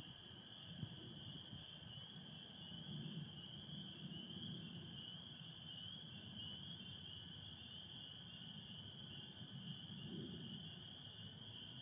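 Faint, steady chorus of many spring peepers calling together, with a lower, fainter steady trilling of American toads beneath it and a low rumble underneath.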